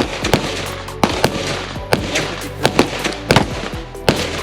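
Gunshots: a rapid, irregular series of sharp bangs from several guns on the firing line. Among them are 10mm Glock pistol shots, firing 220-grain hardcast rounds over a chronograph.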